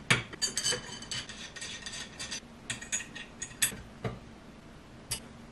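Metal parts of a 3D printer frame clinking and clicking as the aluminium extrusion top bar is fitted onto its uprights: a dense run of sharp clinks with a slight ring in the first two and a half seconds, then a few scattered clicks as a hex key works the screws.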